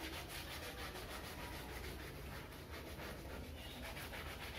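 Soapy Scotch-Brite scouring pad scrubbing a cricket pad: a steady run of quick, faint back-and-forth rubbing strokes.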